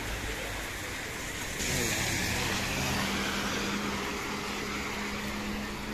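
Rain falling on a wet street, with the hiss of car tyres on flooded asphalt. After a cut about a second and a half in, a steady car engine hum joins the rain noise.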